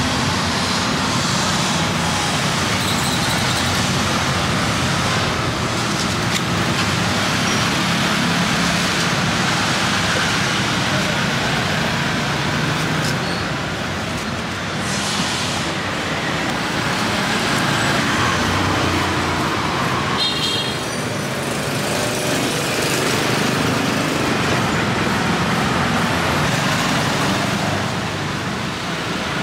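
Steady street traffic noise, an even hum of passing vehicles without pauses.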